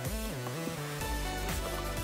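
Background music with a regular beat and sliding tones.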